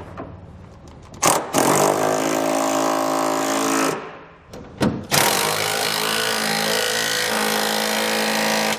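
Cordless power tools running nuts down onto the fifth-wheel rail bolts under a truck bed. Two runs of about two and a half and three and a half seconds, each at a steady motor pitch, with a short click between them.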